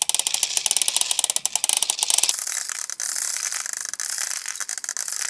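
Plastic toy cement mixer drum cranked by hand, its gears clicking rapidly like a ratchet with a plastic rattle; the clicking changes a little over two seconds in.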